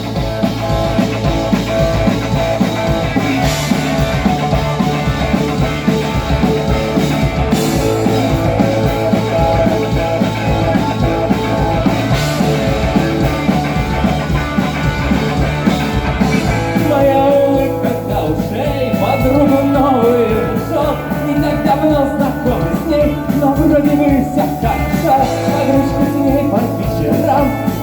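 Rock band playing a song's instrumental intro: drums, bass and guitars, with a cymbal crash about every four seconds. Around seventeen seconds in the texture thins and a melodic lead line comes to the front.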